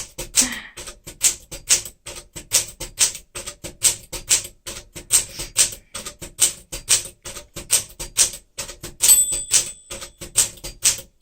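A 1964 Smith-Corona Sterling manual typewriter being typed letter by letter through the alphabet, at about three to four key strikes a second. About nine seconds in, a short ringing tone sounds over the strikes.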